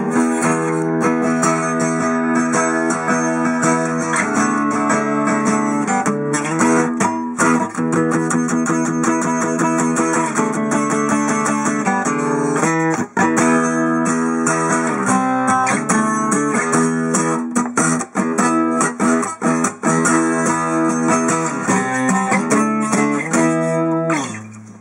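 Sigma DR-7 dreadnought acoustic guitar played continuously, strummed chords mixed with picked notes, recorded close to the sound hole. The playing stops abruptly near the end.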